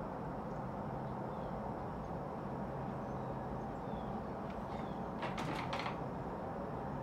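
Steady low background noise, with a quick run of three or four sharp clicks about five seconds in.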